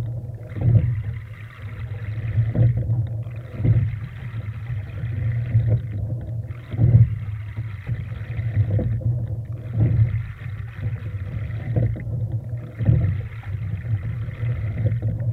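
Rowing scull under way: water rushing along the hull and wind rumbling on the microphone. The sound rises and falls with each stroke, with a brief break in the hiss and a knock about every three seconds.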